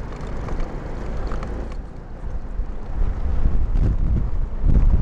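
Car driving on a town road: a steady low rumble of engine and tyre noise that grows louder over the last couple of seconds.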